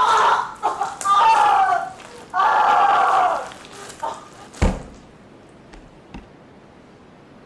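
A person's voice making wordless strained cries and groans for about three and a half seconds, then a single sharp thump with a deep low end.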